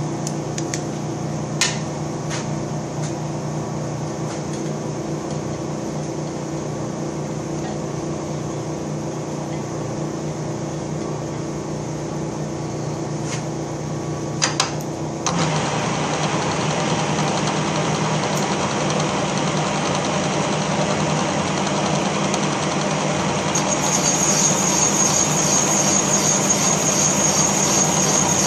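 A 1942 Giddings & Lewis Model 25 horizontal boring machine running with a steady hum and a few light clicks. About halfway through the sound steps up louder and rougher as the boring bar works the cast iron block's rear main seal bore, and a high-pitched whine joins near the end.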